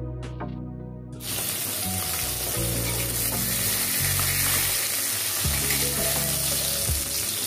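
Marinated bhola fish sizzling steadily as they fry in hot mustard oil in a kadai; the sizzle starts suddenly about a second in, with soft background music underneath.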